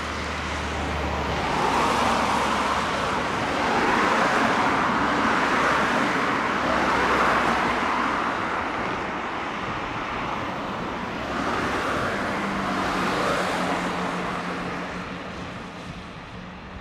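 Road traffic on an elevated road bridge: a continuous rush of passing cars that swells and eases several times as vehicles go by, fading toward the end.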